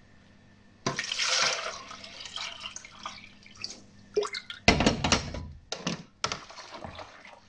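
Water poured from a plastic measuring jug into a basin of foamy liquid soap, splashing for a second or two starting about a second in. A few sharp knocks follow in the second half as the jug and pots are handled.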